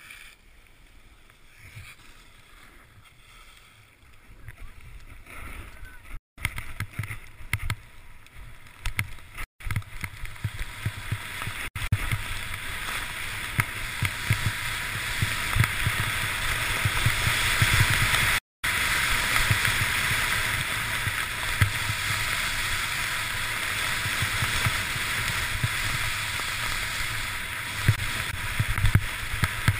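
Wind rushing over the microphone and snow hissing under a rider descending a powder slope, building up from about five seconds in, with low gusty rumbles and three very short cut-outs in the audio.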